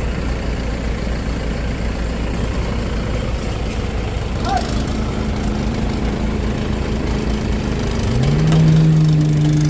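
An engine running steadily, then revving up about eight seconds in and holding at the higher speed, louder.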